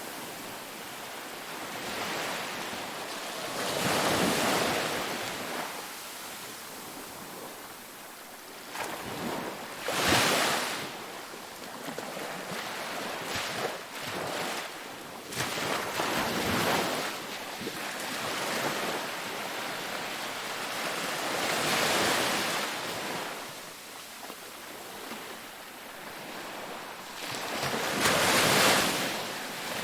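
Ocean waves breaking and washing in over a steady surf wash. The surges swell and fade about every six seconds.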